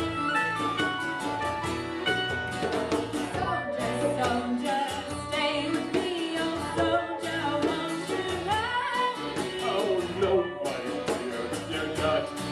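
Folk band playing live: instruments keep a steady rhythmic beat while voices sing a melody over it.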